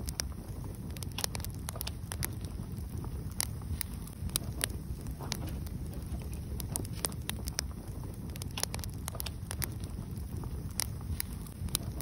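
Wood fire burning in a fireplace, crackling with irregular sharp pops over a steady low rumble.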